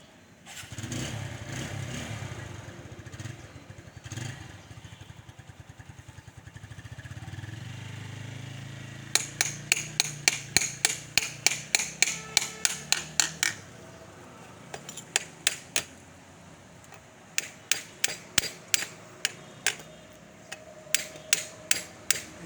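An engine runs with a low, fast pulsing for the first half. From about nine seconds in come several runs of sharp, evenly spaced knocks, about four a second, as of hammering.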